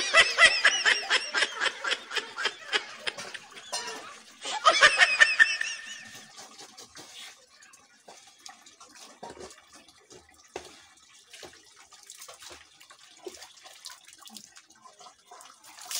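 High-pitched laughter in a quick run of 'ha-ha' bursts for about four seconds, then a second short burst of laughter around five seconds in. After that, faint splashing and dripping of water as a man washes himself under a water pipe.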